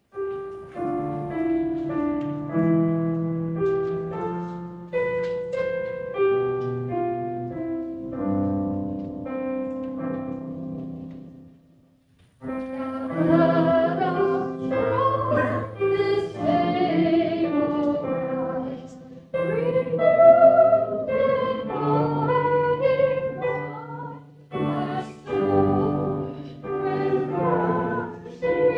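A keyboard plays an introduction of held chords for about twelve seconds and stops briefly. Then a congregation starts singing a sung response, with the keyboard accompanying.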